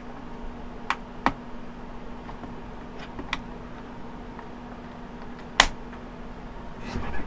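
Sharp plastic clicks as a laptop keyboard's top edge is pressed down and snaps into place, four clicks with the loudest about five and a half seconds in. A handling rustle follows near the end.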